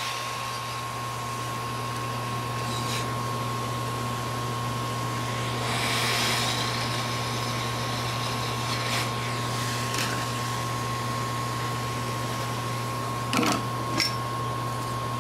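Hot air rework station blowing steadily, with a constant hum and a steady whine under the air noise; the airflow swells briefly about six seconds in. A few light clicks near the end.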